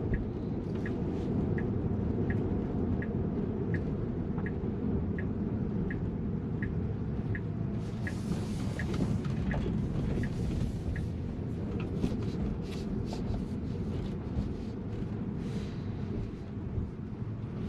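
Inside a Tesla crawling at low speed: a steady low road and tyre rumble, with the turn-signal indicator ticking about one and a half times a second through the turn and stopping about halfway through. Brief scattered crackles and rustles follow in the second half.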